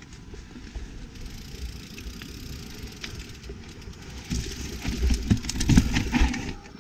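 YT Capra mountain bike riding down a rough trail: a steady low rumble of tyres and wind, with clattering knocks from the bike that grow heavier from about four seconds in and ease just before the end.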